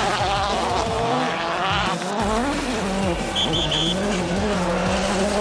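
Turbocharged World Rally Car engines revving hard as cars pass on a gravel stage, the pitch rising and falling through gear changes. The sound breaks off abruptly about two seconds in, then an engine note climbs again.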